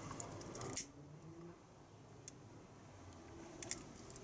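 Faint handling noise from small parts being worked by hand: a few short sharp clicks near the start, a single click past halfway, and a quick pair near the end.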